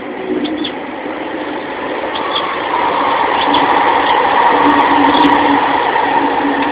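An engine running steadily with a held low hum, growing louder over a few seconds and easing slightly near the end, with a few short bird chirps on top.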